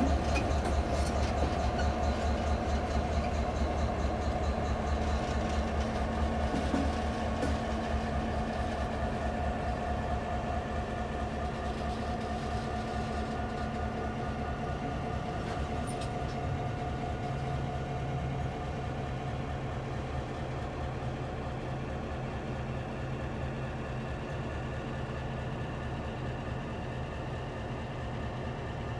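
Diesel locomotive X51's engine running steadily with a low hum as it hauls a freight train of boxcars, growing gradually fainter as the train draws away.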